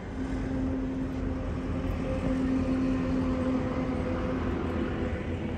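Steady road noise inside a moving car: a low rumble of engine and tyres with a steady hum.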